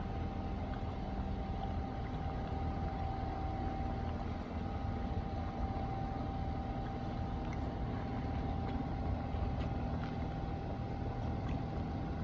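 Small outboard motor on a skiff running steadily at low revs, with a constant low hum and a thin steady whine over it.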